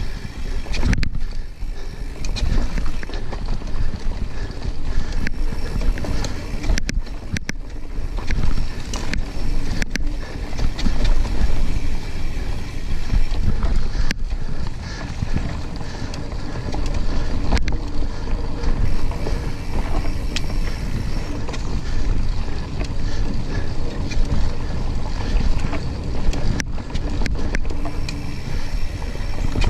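Mountain bike rolling fast over a dirt trail: steady rumble of tyres and wind buffeting the microphone, with scattered sharp clicks and knocks from the bike over bumps.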